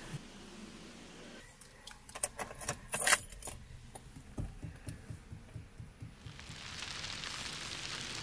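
Car keys jangling on their ring at the ignition: a cluster of sharp metallic jingles about two to three and a half seconds in. They are followed by low, evenly spaced thuds, and then a steady hiss that builds near the end.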